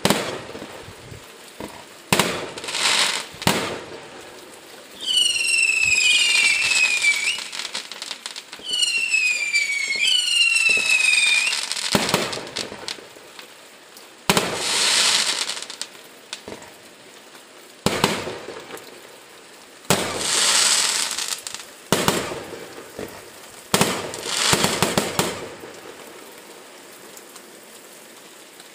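Aerial fireworks going off: sharp bangs as shells burst, two spells of high whistling that falls in pitch over a couple of seconds each, and several crackling bursts lasting a second or two. The display dies away near the end.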